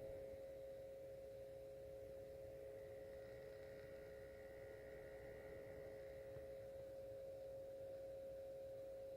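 Optoma UHD65 projector's cooling fan running with a steady, tonal hum, and a fainter higher whine rising in between about three and six seconds in. The owner finds it abnormally loud and distracting for a projector with its lamp in eco mode, takes the projector for defective, and compares the noise to a vacuum.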